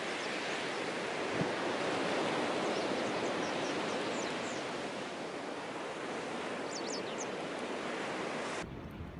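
Sea surf washing on the shore in a steady rush, with a few faint short high chirps. Near the end it cuts off suddenly, leaving wind rumbling on the microphone.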